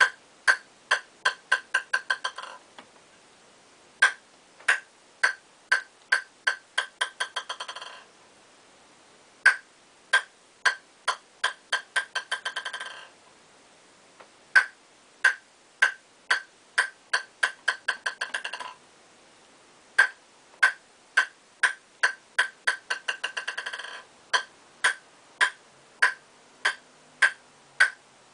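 Table tennis ball bouncing on a Nittaku KCZ kevlar-carbon blade. There are about five runs of sharp pings, each starting about half a second apart and quickening into a rapid patter as the ball settles on the blade, then starting again.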